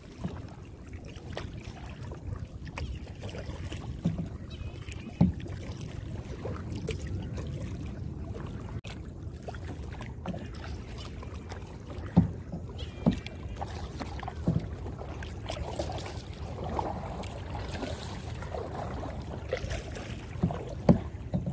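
Kayak being paddled through calm water: paddle strokes splashing and dripping, with a few sharp knocks scattered through.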